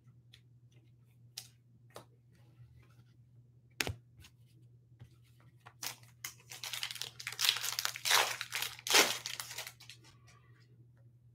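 A few light clicks of trading cards being handled, then, about six seconds in, a foil trading-card pack wrapper being torn open and crinkled for about four seconds.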